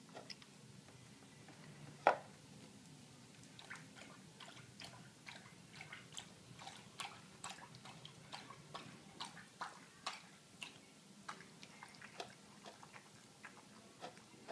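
A dog licking a plastic food dish clean and lapping from a water bowl: a steady run of quick wet licks, about two or three a second, with one louder knock about two seconds in.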